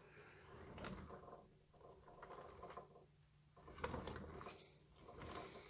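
Near silence in a small room, with a few faint handling rustles and scrapes, about a second in and again around four to five seconds.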